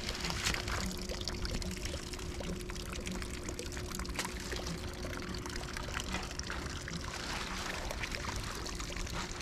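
Water pouring and trickling steadily, with a faint steady hum beneath it.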